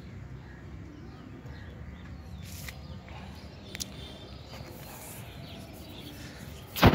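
Outdoor ambience with a steady low rumble and a few faint bird chirps, then near the end a loud, brief thump of handling noise on the phone's microphone.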